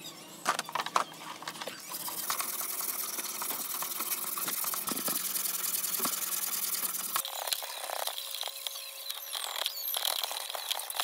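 Brush scrubbing a rusty steel meat cleaver blade in soapy water: a fast, continuous wet rasping, with a few sharp knocks in the first second.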